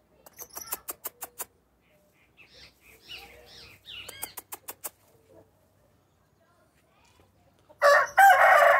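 Bearded Índio rooster crowing loudly, the crow starting near the end. Before it come a few quieter short calls and a run of sharp clicks.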